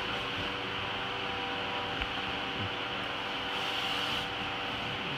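Steady mechanical hum with a few faint steady tones. About three and a half seconds in, a brief soft rubbing sound rises and fades as paint is worked onto the wall.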